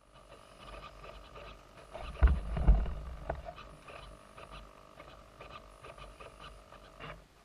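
Electric motor and propeller of an Eagle II RC trainer plane whining steadily in flight at a distance. A louder low rumble comes about two seconds in, and the sound cuts off suddenly near the end.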